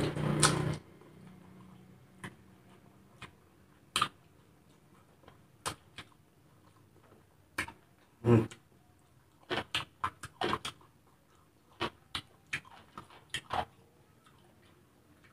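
Mouth sounds of someone eating fried noodles by hand: scattered wet smacks and clicks of chewing, with a louder slurp about eight seconds in and a quick run of smacks after it. At the start, engine noise stops abruptly just under a second in.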